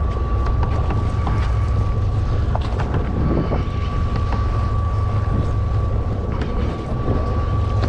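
A boat's engine running with a steady low rumble, wind buffeting the microphone, and a thin steady whine over it that stops near the end, with a few faint clicks.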